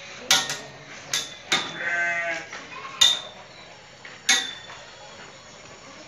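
A Sojat goat bleats once, a wavering call about two seconds in, among five sharp knocks or clanks that are the loudest sounds.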